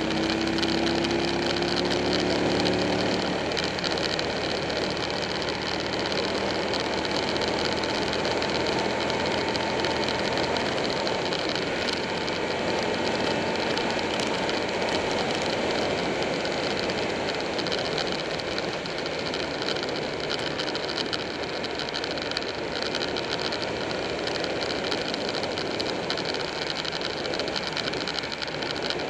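Buell 1125R's V-twin engine pulling with a slightly rising pitch for the first few seconds. After that, a steady rush of wind over the microphone at road speed dominates, with the engine running underneath.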